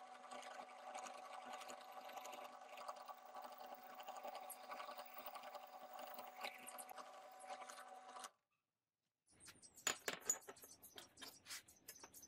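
Bench drill press running steadily as its twist bit bores through a steel tube, a steady motor hum with a light rasp of cutting. It cuts off about eight seconds in, and after a second of silence come several sharp clicks and taps, the loudest two just after it.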